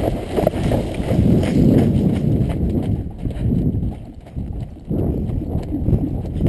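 Horse's hoofbeats on firm, dry ground as it moves off from a water jump under a rider: a steady rhythm of dull thuds, dipping briefly about four seconds in.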